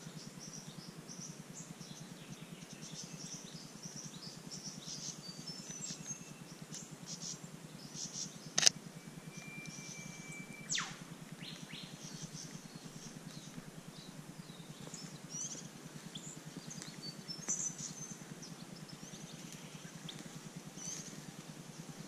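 Small birds chirping and twittering in short, high calls with a faint steady hum beneath. A little before halfway comes one sharp click, the loudest sound, followed by a briefly held high whistle note and a quick falling whistled sweep.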